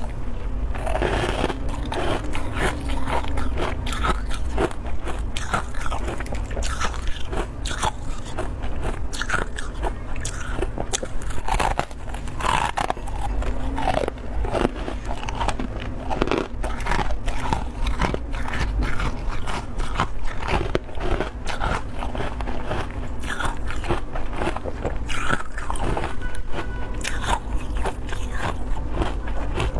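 Close-up crunching and chewing of thick, powdery freezer frost: a dense, continuous run of crisp, crackling bites and chews over a steady low hum.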